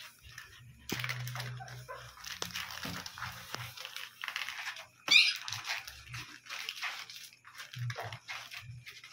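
Eight-day-old puppies whimpering and squeaking as they crawl around their mother, with a short high squeal about five seconds in.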